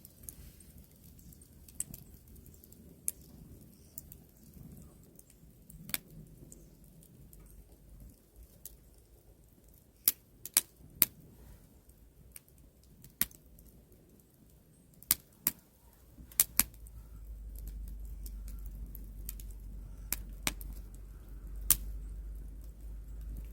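Wood campfire crackling: irregular sharp pops and snaps, several close together around the middle, over a low steady rumble that grows louder about two-thirds of the way in.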